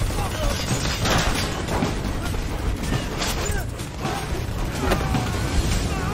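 Action-film fight sound mix: a dense run of hits, crashes and impacts over music, with short vocal cries throughout.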